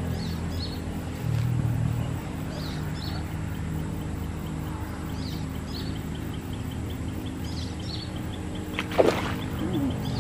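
A motor running with a steady low hum, with short bird chirps every couple of seconds and a sharp loud sound about nine seconds in.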